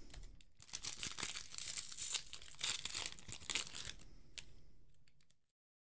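A 2021 Topps Series 2 baseball card pack wrapper being torn open and crinkled by hand, a dense crackling that stops a little before the end, with one sharp click about four seconds in.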